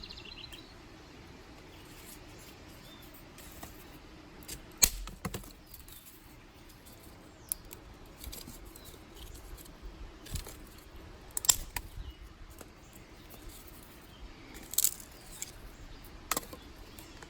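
Dry sticks and twigs snapping: single sharp cracks a second or more apart, sometimes two or three in quick succession, the loudest about five and eleven seconds in.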